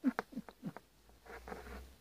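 A cat rolling about on a plastic table with a sprig of catnip: a quick run of short clicks and scrapes in the first second, then a soft rustle.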